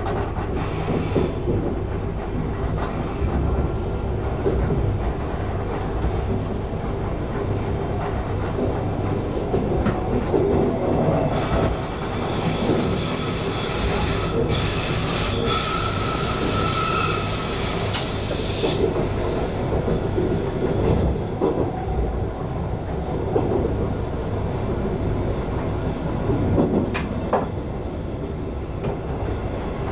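Local electric train running on the rails, heard from the driver's cab, with a steady rumble of running noise. From about eleven seconds in, the wheels squeal for roughly seven seconds with a high, piercing ring, then fade back to plain running noise.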